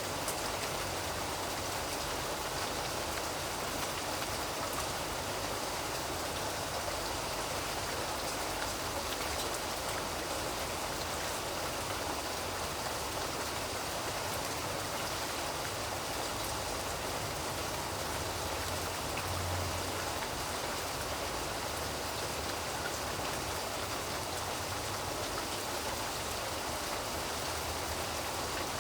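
Steady rain falling, an even hiss with many small drop ticks and a faint low rumble.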